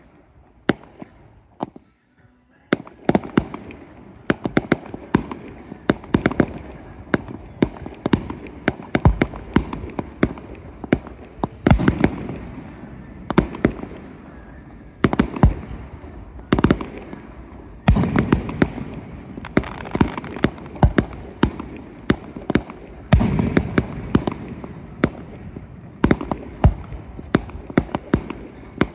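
Fireworks display: aerial shells bursting in a rapid run of sharp bangs with crackling between them, a few scattered bangs at first, then several a second from about three seconds in.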